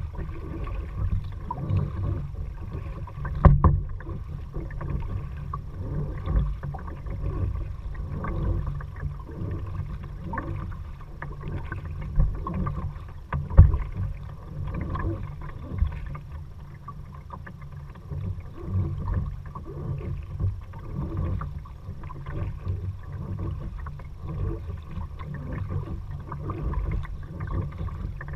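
Kayak paddling: paddle strokes in the water, many small irregular splashes and drips over a steady low rumble. Two louder knocks sound, one a few seconds in and one about halfway through.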